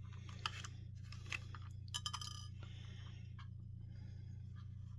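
A few faint clicks and light taps of a plastic carbon monoxide alarm casing being handled and pried at during disassembly, most of them bunched around two seconds in. A steady low hum runs underneath.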